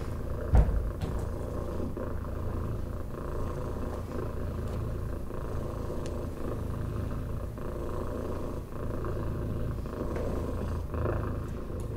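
Steady low cat-like purring, with a single soft knock about half a second in.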